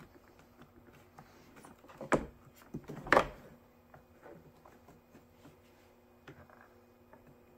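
Hard plastic knocks and clicks from handling a Sebo D4 canister vacuum's hinged top cover and filter. There are two louder knocks about two and three seconds in, with lighter clicks and rustling between them.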